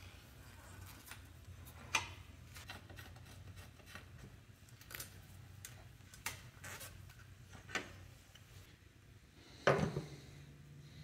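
Scattered light metal clicks and clinks of a wrench and crank parts as a bicycle's crank arm and chainring are unbolted and worked off the bottom bracket. Near the end there is a louder knock with a short rattle as the metal parts are handled.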